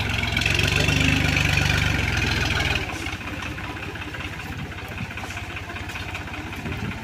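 New Holland tractor's diesel engine revved hard while the tractor is stuck in mud, then dropping suddenly to a steady idle about three seconds in.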